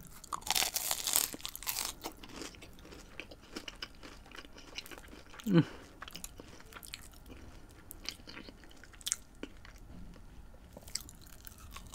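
Close-miked eating: a crunchy bite into crispy fried food, then chewing. There is a brief falling 'mm' hum about halfway through.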